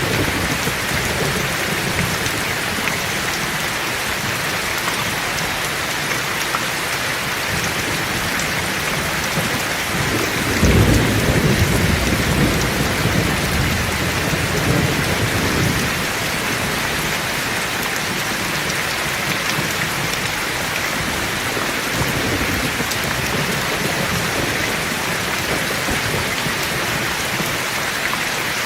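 Heavy rain falling steadily, with a rumble of thunder swelling about ten seconds in and dying away some six seconds later.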